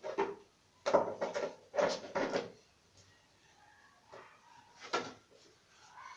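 Plastic fan parts being handled and knocked about during washing: a few clattering knocks and scrapes, loudest in two clusters about one and two seconds in, with another knock near five seconds.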